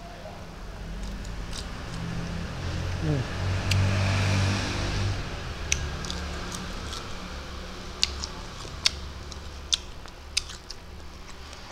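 A vehicle passes by: a low engine rumble swells and fades, with a falling pitch about three seconds in. After that come a few sharp mouth smacks and clicks from eating shell-on prawns and licking fingers.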